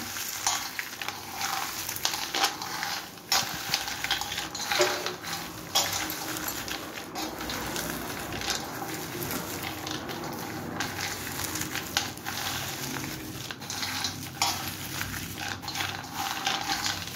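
Roasted peanuts rubbed and stirred by hand in a steel bowl to strip their papery skins: a continuous rustling rattle of nuts shifting and clicking against the metal.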